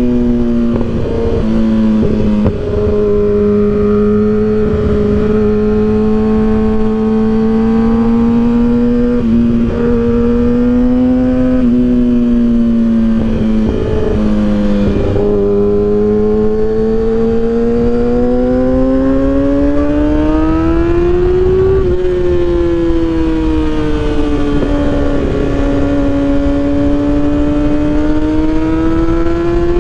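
2012 Kawasaki ZX-6R's 636cc inline-four engine running through an M4 exhaust with the baffle removed, while riding at a steady pace. The engine note drifts slowly, climbs for several seconds, drops sharply about two-thirds of the way in, then climbs again near the end.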